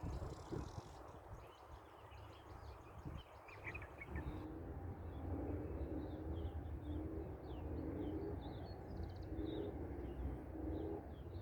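Frogs calling from the water, starting about four seconds in: a steady chorus of short pulsed croaks repeating roughly once a second. Small birds chirp high above them, over a steady low rumble.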